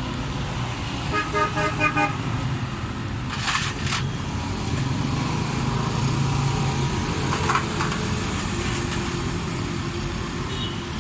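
A car engine running steadily amid street traffic, with a vehicle horn tooting in several short beeps about a second in.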